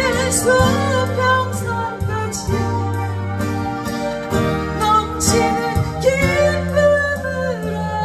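A woman singing a Korean ballad to her own strummed acoustic guitar, with vibrato on the held notes.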